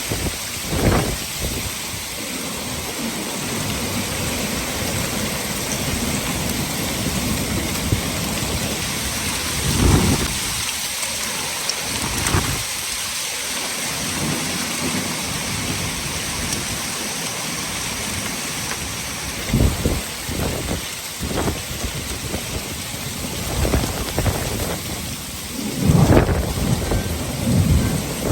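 Heavy wind-driven rain pouring in a steady hiss, broken by several short low rumbles, the strongest near the end.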